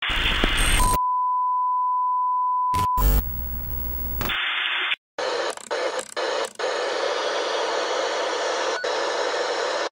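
Television "no signal" sound effect: a burst of static, then a steady high-pitched test-tone beep for about two seconds, glitchy distortion, and steady static hiss broken by a few brief dropouts.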